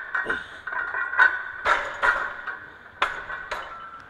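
Iron weight plates clanking and ringing on a loaded barbell during back-squat reps. There are about half a dozen sharp metallic clinks, each with a short ringing tail, and they stop just before the end.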